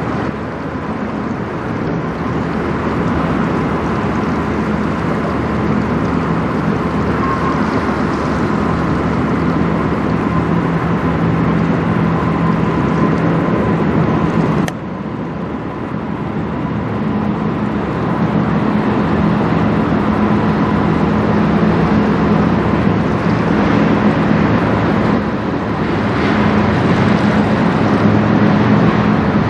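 Great Lakes bulk carrier passing close by: a steady low engine hum over the rush of water along its hull. About halfway through the sound breaks off suddenly, then builds again, the hum strongest near the end.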